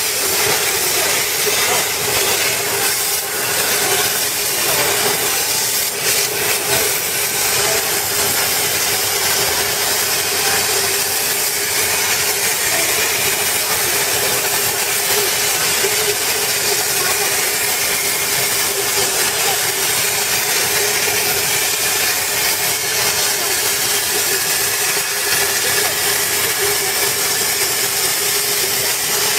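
CNC plasma cutter's arc cutting through metal plate: a steady, loud hiss with a constant tone running through it.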